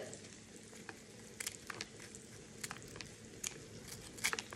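Kitchen shears snipping crispy cooked bacon into small pieces: several short, sharp crunchy snips, spaced roughly a second apart.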